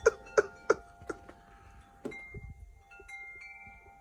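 Chimes ringing at several pitches. A few sharp strikes come in the first second, then lighter, scattered strikes, and the tones ring on between them.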